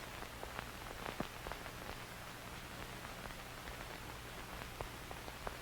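Faint steady hiss with scattered light crackles and a low hum underneath.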